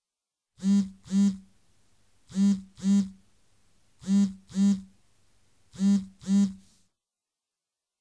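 Electronic buzzer sounding a low, harsh buzz in short double pulses, four pairs evenly spaced.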